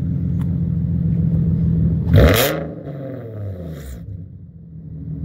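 Nissan 350Z HR's 3.5-litre V6, fitted with ISR test pipes, idling. About two seconds in the throttle is blipped sharply, and the revs fall back over the next couple of seconds.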